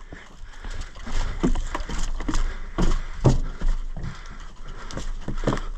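Heavy footsteps on the ground, about two a second, with a steady low wind rumble on the microphone; the sound cuts off suddenly at the end.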